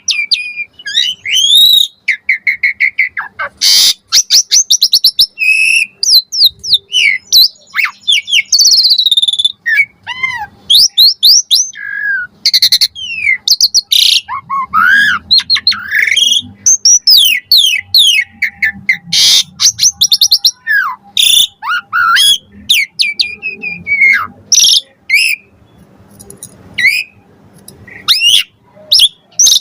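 Asian pied starling singing a long, varied song: whistled glides, fast rattling trills and sharp clicks, one phrase after another with short gaps.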